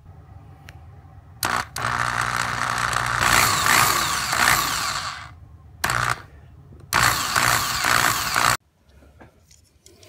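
Power drill boring out the rivet post on the base of a diecast metal model car, to free the body. It runs in short and long bursts: a brief one about a second and a half in, a long run of about three seconds, a blip, then another run of about a second and a half that stops suddenly.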